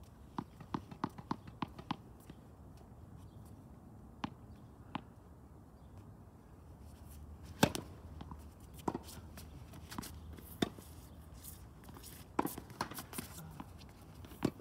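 Tennis balls bouncing and being struck on a court: a quick run of about seven short knocks in the first two seconds, then scattered single knocks, the loudest about halfway through.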